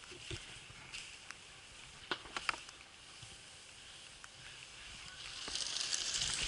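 Ski-jumping skis sliding over packed snow with a faint steady hiss and a few sharp clicks about two seconds in. The snow hiss grows louder near the end.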